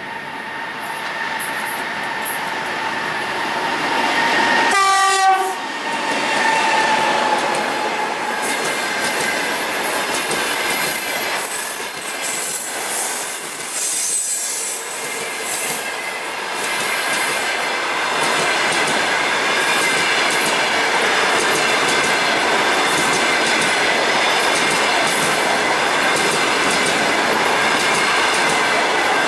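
EP20 dual-current electric locomotive and its passenger train passing close by. A steady electrical whine comes from the approaching locomotive and is cut by a short horn blast about five seconds in. Then the coaches' wheels roll over the rails in a loud, even rumble with clatter that continues to the end.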